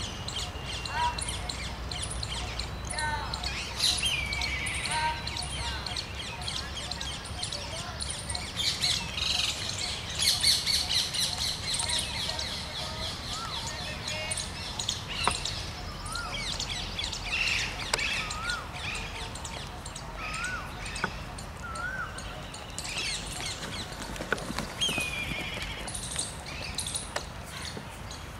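Birds chirping and calling in the trees, with a run of short, repeated whistled notes midway through, over steady outdoor background noise.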